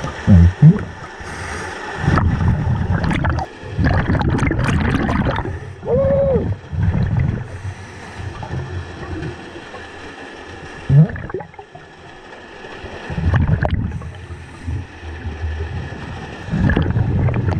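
Scuba diver breathing through a regulator underwater: several bursts of bubbling exhaust bubbles a few seconds apart, with quieter gaps between breaths.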